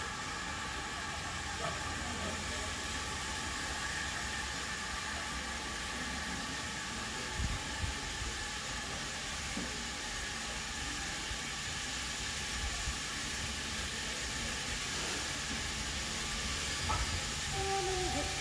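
GWR 5700-class pannier tank steam locomotive no. 4612 drawing slowly closer: a steady hiss of steam over a low rumble, with a couple of soft knocks about seven and a half seconds in.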